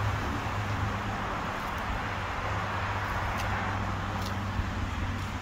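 Steady rushing of road traffic with a low engine hum beneath it and a few faint ticks.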